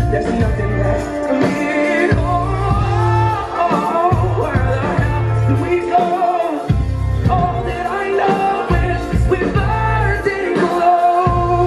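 Live rock band playing loudly, with a male lead singer singing into a microphone over a pulsing bass and drum beat.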